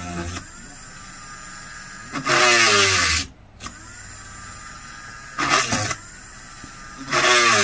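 Dremel rotary tool re-drilling rivet holes through a Bakelite plate, run in three short bursts of about a second each. Its pitch glides as it speeds up and winds down.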